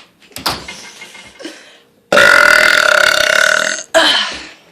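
A woman belching: one long, loud burp of nearly two seconds about two seconds in, followed right after by a brief second loud sound.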